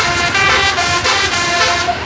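A bus's 18-note telolet air-horn set playing a quick tune, the horn note changing several times a second.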